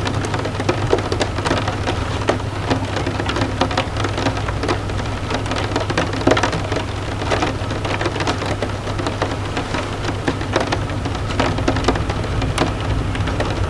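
Rain falling on a window pane: a steady hiss of rain with many sharp individual drop taps throughout, over a constant low rumble.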